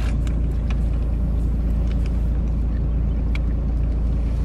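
Steady low rumble of a car idling, heard inside the cabin, with a few faint clicks of chewing.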